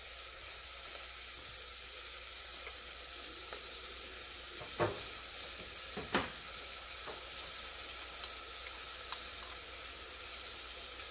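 Chopped onions and shallots sizzling steadily while they sauté in an Instant Pot, with two light knocks about five and six seconds in.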